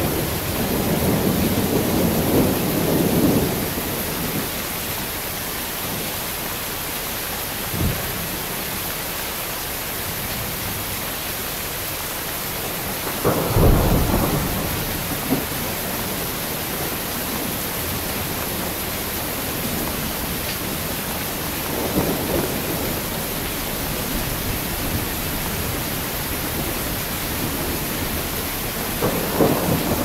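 Heavy rain falling steadily, with thunder: a rumble in the first few seconds, a sharper, louder clap about halfway through, and fainter rumbles later.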